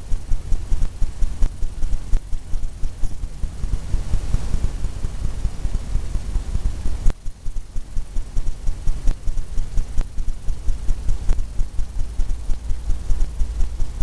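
Stiff paintbrush dabbing oil paint onto a stretched canvas on an easel: a rapid run of soft thumps, about three or four a second, with a short break about seven seconds in.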